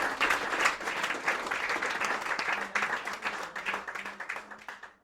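Audience applauding after a song, the clapping gradually thinning out and fading.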